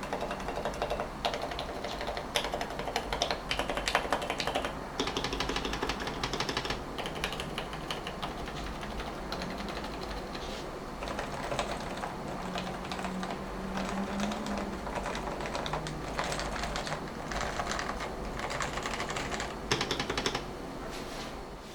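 Continuous typing on a Topre Realforce R3S electro-capacitive keyboard fitted with Deskeys carrot 49g domes, lubed sliders and stabilisers, housing gaskets and silencing rings. The keystrokes come in a dense, even stream, with a few louder strokes a couple of seconds in and near the end.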